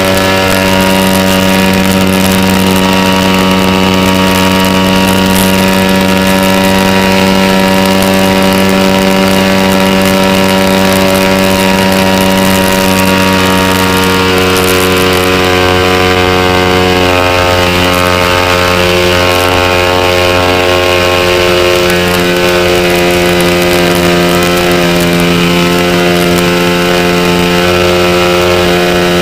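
Sig Kadet Senior model airplane's engine running at steady throttle, heard close up from on board, its pitch shifting slightly about halfway.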